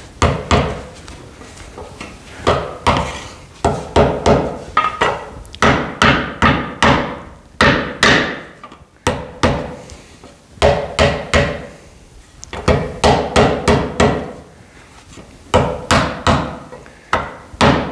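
Mallet blows on a sheet-metal stake pocket resting on a wooden stump, as the piece is bent into shape. Sharp strikes, each with a brief metallic ring, come in quick runs of several blows separated by short pauses.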